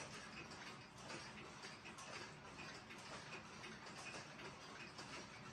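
Mechanical pendulum wall clocks ticking faintly, the ticks of several clocks overlapping unevenly.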